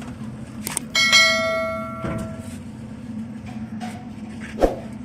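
A metal object struck once about a second in, ringing like a bell and fading over about a second and a half. A few light clicks and a steady low hum sound underneath.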